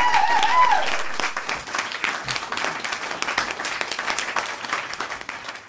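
Crowd cheering and applause: a few rising-and-falling "woo" shouts in the first second over dense clapping, which then dies away gradually.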